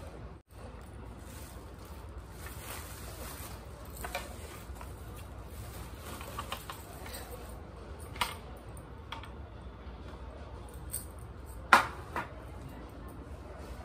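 Hands sorting spinach out of a clear plastic bag: soft crinkling of the plastic and rustling of leaves, with a few short sharp clicks, the loudest about three-quarters of the way through.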